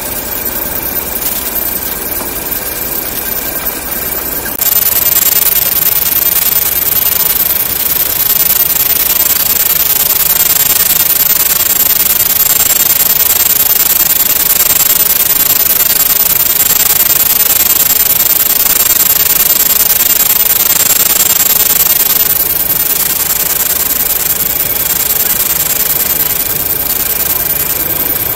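CNC vertical machining centre milling a metal tool-holder blank: steady cutting noise, an even hiss with a high, steady whine. It gets suddenly louder about four and a half seconds in and eases slightly a few seconds before the end.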